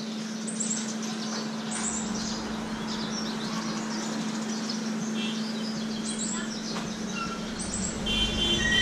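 A small bird chirping, short high notes sweeping down several times, over steady street noise and a constant low hum.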